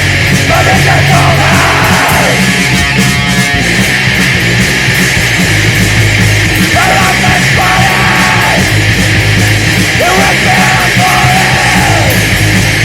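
Loud, heavy, distorted rock music with yelled vocals that come and go.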